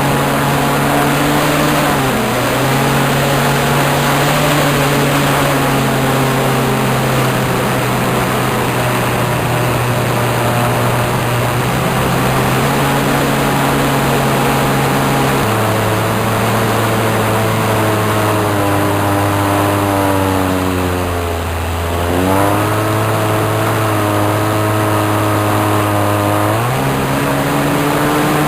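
Radio-controlled model airplane's small combustion engine running in flight. Its pitch steps down and up as the throttle is moved: lower through the middle, a short dip about two-thirds in, then higher again near the end.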